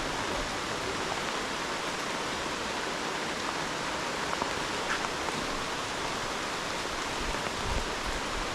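Steady rain falling on the rainforest, an even hiss with a few faint ticks.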